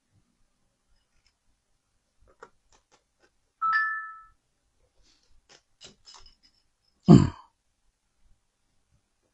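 A short electronic chime of two steady tones, dying away over about half a second, then a few light clicks and one loud knock near the end.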